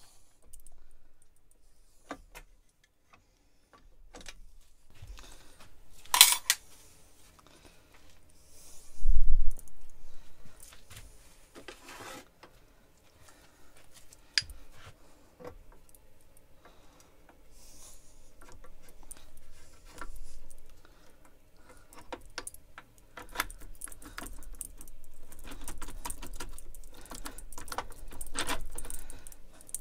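Metal parts of a lathe collet closer clinking and clicking as they are handled and fitted onto the headstock, with a sharp metal clank about six seconds in and a heavy thump about nine seconds in.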